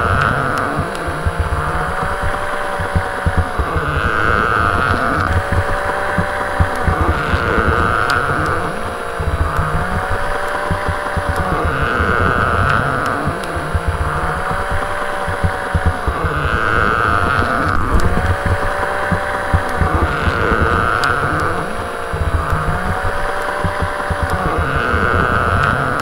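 Motorized baby doll moving: its small electric motor and gears whir while the plastic body creaks and clicks. The motor's whine rises and falls in a cycle that repeats about every four seconds.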